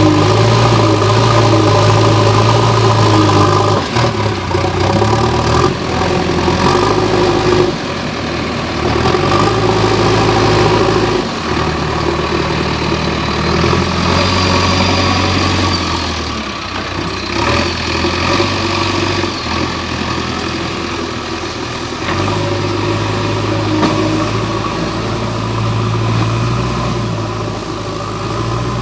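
JCB backhoe loader's diesel engine running under changing load, its pitch and level stepping up and down every few seconds as the hydraulics work.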